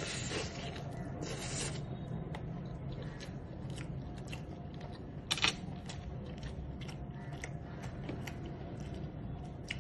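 A man biting into and chewing a fried chicken leg: soft scattered crunches and mouth clicks, denser in the first two seconds, with one sharper click about five seconds in.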